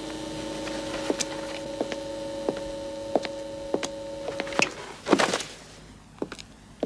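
A steady pitched drone with soft ticks about every two-thirds of a second stops suddenly about four and a half seconds in. Moments later a bundle of paper files is thrown down onto a concrete floor with a loud slap.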